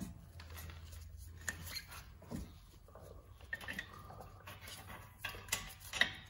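Faint metal clicks and light knocks from a Subaru WRX STI front brake caliper and its mounting bolt being handled and lined up by hand, with a few sharper clicks about a second and a half in and near the end.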